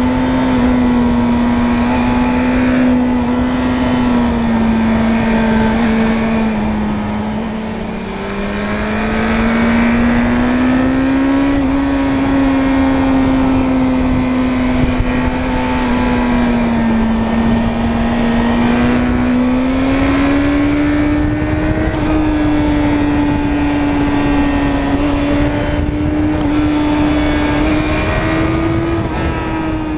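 Suzuki Bandit 600's inline-four engine running under way, heard from on the bike. Its note sags and the level dips about eight seconds in, then climbs and holds, and rises again in the last seconds before falling back at the very end.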